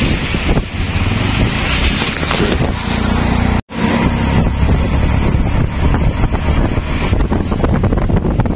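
Steady street and vehicle noise with wind rumbling on the microphone; the sound breaks off for an instant a little under four seconds in.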